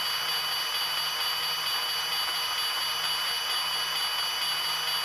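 Lionel Steam Clean and Wheel Grind Shop accessory running: a steady hiss with two high, unchanging whining tones and a faint low hum.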